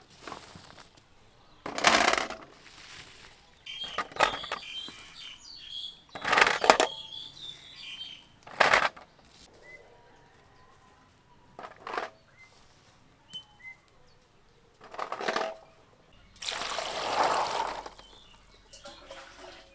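Hands raking through dry rice husks to pick out quail eggs: rustling handfuls every couple of seconds, with light clicks of the small eggshells knocking together. Near the end a longer rush of water runs into the bowl of eggs.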